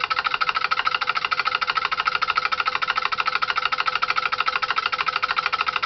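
Home-built DC motor made from microwave-oven magnets and transformer coils running at speed, its relay switching making a fast, even clatter with a steady hum underneath. The sound cuts off suddenly at the end.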